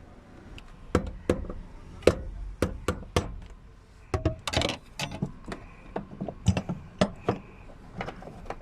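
Irregular knocks and metallic clinks of hand tools and parts being handled during repair work, starting about a second in, with a short scrape midway.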